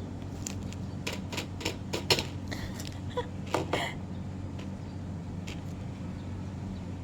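Light clicks and taps from handling a small plastic blind box figure and its packaging: a quick run of about a dozen in the first four seconds, then a couple more, over a steady low hum.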